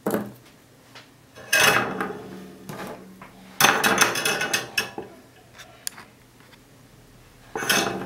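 Small tools and parts clinking and clattering on a desktop as they are handled, picked up and set down: several separate clatters, the longest about halfway through.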